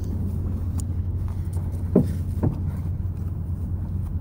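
A futon mattress and padded sleeping bags being shoved into the back of a small car: two dull thumps about two seconds in, half a second apart, over a steady low rumble.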